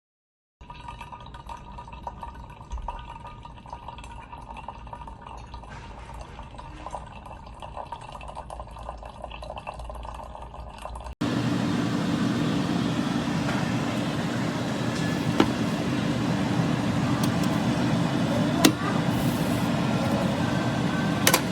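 Single-serve coffee maker dispensing, liquid pouring and dripping into a cup. It is heard in two stretches: a quieter one with a faint steady tone, then, after a sudden cut about eleven seconds in, a much louder pour with a few sharp clicks.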